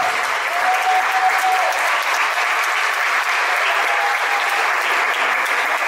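Audience applauding steadily, a crowd clapping without a break.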